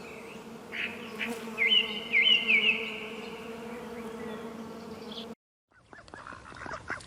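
Bees buzzing in a steady hum, with a few short bird chirps behind them about two seconds in. The buzz cuts off about five seconds in, followed by faint scattered clicking.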